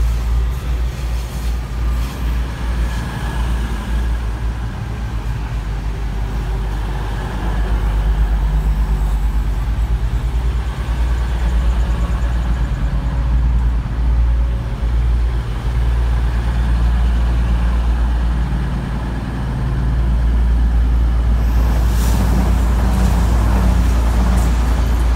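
East Midlands Trains Class 222 Meridian diesel multiple unit drawing slowly along the platform and coming to a stand, its underfloor diesel engines giving a steady low rumble that swells again about twenty seconds in.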